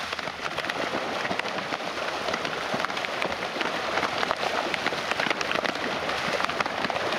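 Barramundi in a feeding frenzy at the surface of a pond, striking feed thrown from a bucket: dense, continuous splashing with many sharp pops.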